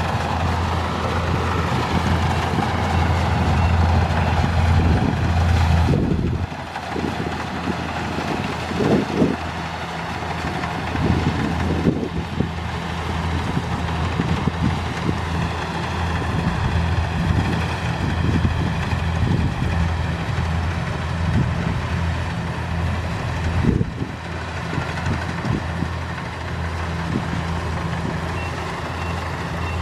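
Kubota rice combine harvester's diesel engine running steadily, with irregular knocks and rattles from the machine; the sound drops briefly about six seconds in and again near 24 seconds.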